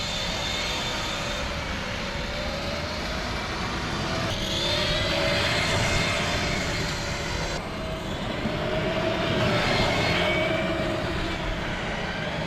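Electric motor of a child's pedal-driven ride-on car whining as it drives, its pitch rising and falling with speed, over a steady rumble.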